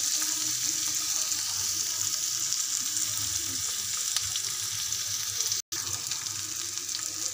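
Chopped onions with green chillies and curry leaves sizzling steadily in hot oil in a pan. The sound cuts out for an instant about five and a half seconds in.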